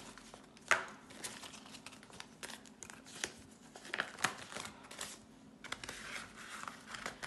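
Jamaican banknotes being counted and handled with a paper cash envelope: irregular paper crinkling and rustling with short, sharp snaps of the notes, the sharpest about a second in and again a little past halfway.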